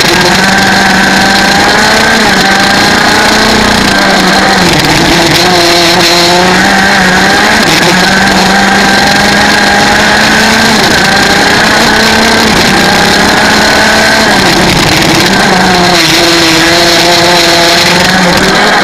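125cc two-stroke kart engine driven hard, recorded onboard: its revs climb steadily, then drop away twice, about four and fifteen seconds in, as the kart slows for corners, and climb again.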